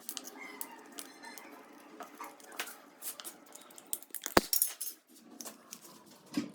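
Light clicks and clatter as the protective caps are pried open and pulled off concealed shower body-jet boxes, with one sharp click about four and a half seconds in.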